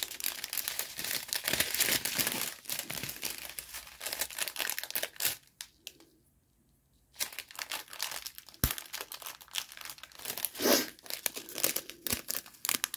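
Plastic packets of diamond painting drills crinkling as they are handled: a dense run of rustling for about five seconds, a short pause, then more scattered crinkles and a few sharp clicks.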